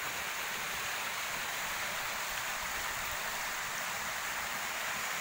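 Small waterfall pouring steadily down a narrow natural rock chute into a pool: an even, unbroken rush of water.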